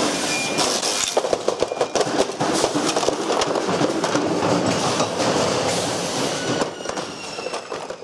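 Clear plastic pachinko-machine trim pieces clattering and knocking against each other and the bin as they are handled and pulled apart, with loose screws rattling. The sound fades out near the end.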